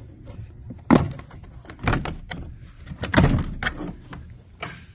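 Plastic windshield cowl panel knocking and clattering as it is worked loose and lifted out of its groove: a few sharp knocks, the loudest about a second in and about three seconds in.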